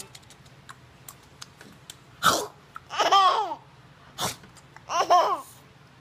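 Baby girl laughing in two loud, high-pitched squealing bursts, each falling in pitch, the first about halfway through and the second near the end, with short sharp breathy sounds before them.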